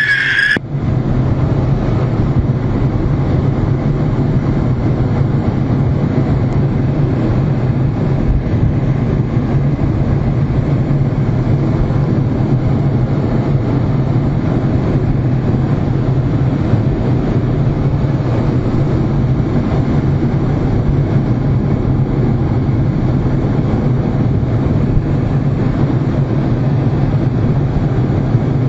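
Cockpit noise of a MiG-29 fighter jet in flight: a steady rush of engine and airflow noise over a constant low hum.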